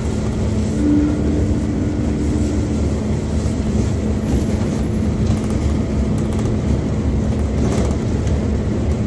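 MAZ 205 articulated city bus under way, heard from inside the cabin: steady engine drone and road rumble with a constant hum. A short higher whine comes in about a second in and lasts about two seconds.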